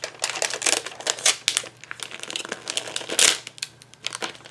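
Clear plastic stamp sheet crinkling and crackling irregularly as it is handled to pick out a photopolymer stamp, loudest a little after three seconds in.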